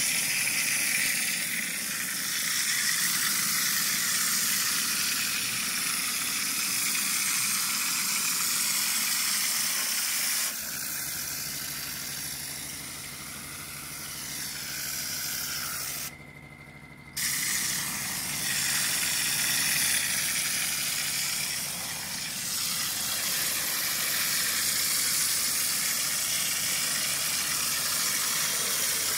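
Compressed air hissing steadily through a mortar hopper spray gun as it sprays cement mortar. The hiss breaks off for about a second a little past halfway, then resumes.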